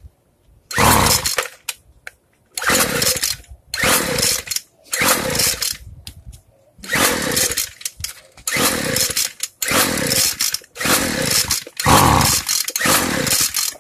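Two-stroke Weedeater string trimmer engine being pull-started about nine times, each pull a short rising burst of engine noise that dies away without the engine staying running. The low-speed fuel screw has been opened too far, so the engine is running too rich to catch.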